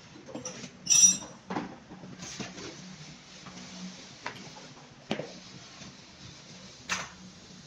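Small metal parts and hand tools being handled and set down on a hard floor: a loud, ringing metallic clink about a second in, then a few scattered knocks.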